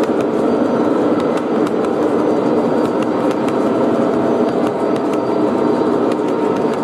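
O gauge three-rail model coal train rolling past, its hopper cars' metal wheels giving a steady rumble on the track, with light scattered clicks.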